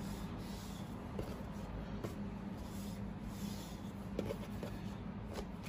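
Wooden rolling pin rolling out a round of soft dough on a floured wooden board: faint soft rubbing, with a couple of light knocks about four seconds in, over a steady low hum.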